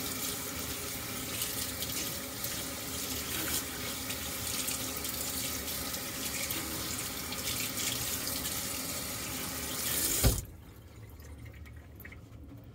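Kitchen faucet running onto a wet cotton cloth in a stainless steel sink: a steady splashing rush as the cloth is given its final rinse. The water cuts off suddenly about ten seconds in, with a brief thump as it stops, leaving only a quiet room.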